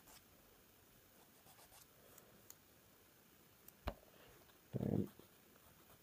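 Faint scratching and light clicking of small plastic kit parts and tools being handled on a work table. A sharp click comes about four seconds in, and a short, dull knock about a second later.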